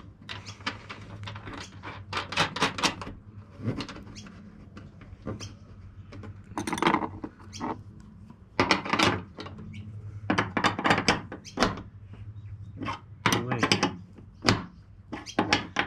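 Scattered metallic clicks, knocks and squeaks of spanner work on a bonnet gas strut's mounting bolts and fittings, over a low steady hum.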